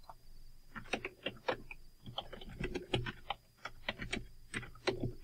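Typing on a computer keyboard: an irregular run of quick key clicks with short pauses, starting about a second in.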